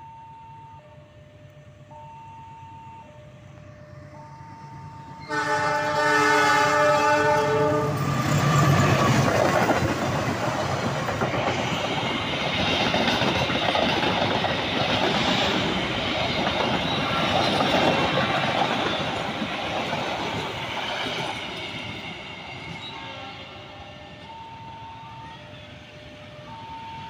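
A two-tone level-crossing alarm alternates between a higher and a lower note. About five seconds in, a diesel locomotive sounds its horn for about two and a half seconds, and a passenger train passes with a loud rumble and clatter of wheels on rail that slowly fades. The two-tone crossing alarm comes back near the end.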